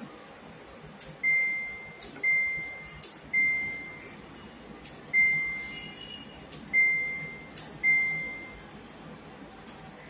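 Samsung ecobubble washing machine's program selector dial turned step by step: each step gives a sharp click followed by a short high beep from the control panel, six beeps at uneven intervals, with one last click near the end and no beep after it.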